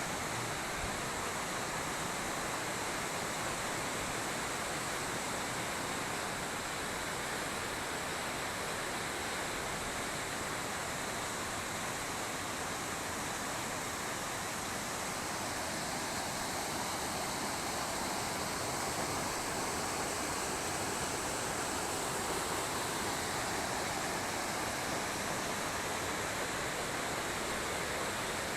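Uchan-Su waterfall: the steady rush of water falling and splashing.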